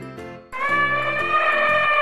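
Elephant trumpeting: one long, loud call that starts suddenly about half a second in, pitch sagging slightly, over light background music with plucked notes.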